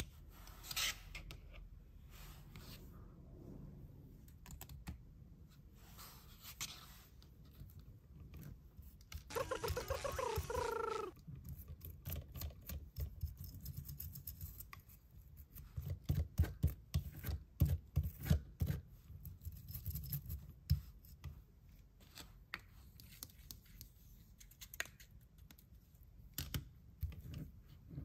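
A toothbrush scrubbing dried dirt off a plastic toy monster truck: close, soft scratching and scraping of bristles, with many small clicks and taps of plastic, busiest in the second half. About ten seconds in there is a short pitched tone, about two seconds long, whose pitch wavers.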